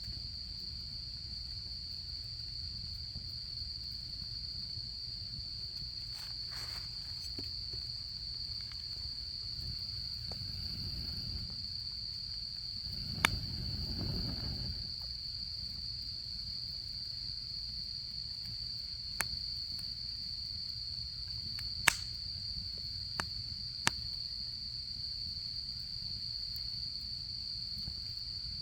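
Autumn insects chirring in one steady high-pitched drone, with a campfire's wood crackling in a few sharp pops, about five, in the second half. A low rumble swells briefly near the middle.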